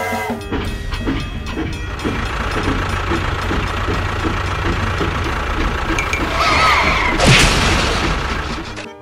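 Train running on rails, clacking about two or three times a second over a steady low rumble. About six and a half seconds in comes a short wavering squeal, then a single loud crash as the toy tractor slams into the toy train.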